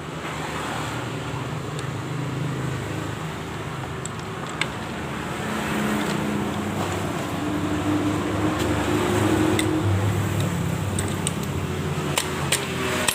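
A motor vehicle's engine running, its pitch shifting and growing louder towards the middle, with a few sharp clicks near the end.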